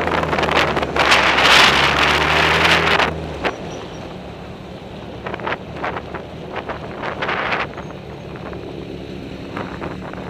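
Motorcycle engine running at a steady speed under heavy wind noise on the microphone; about three seconds in, the engine note and the wind drop away as the bike slows, leaving a quieter low engine sound with a few light clicks.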